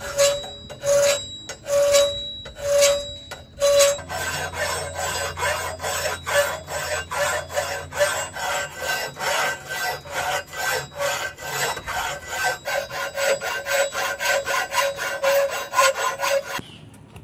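Hand file scraping on the forged steel of a trident, filing between and along the tines. The first few strokes are long and slow, about one a second, with a ringing tone under each; from about four seconds in the strokes turn short and quick, about three a second, and stop shortly before the end.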